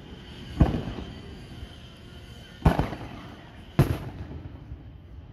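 Aerial fireworks shells bursting overhead: three sharp booms, one just under a second in and two more close together about three and four seconds in, each trailing off in a rolling echo.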